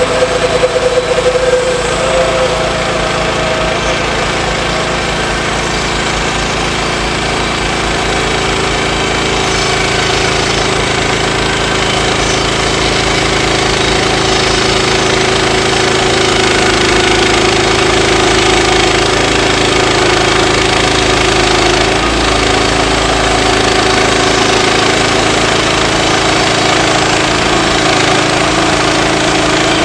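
Small gas engine of a Woodland Mills HM126 portable band sawmill running steadily under load while its bandsaw blade cuts lengthwise through a cedar log.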